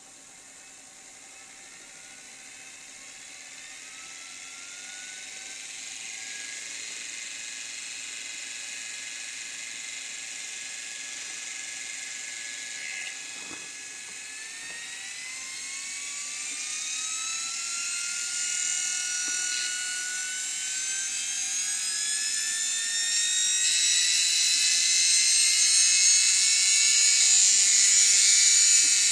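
Arcelik 2806850500 washing machine motor running on DC, speeding up: its whine rises steadily in pitch and grows louder. About halfway there is a click and the pitch sags briefly before climbing higher again.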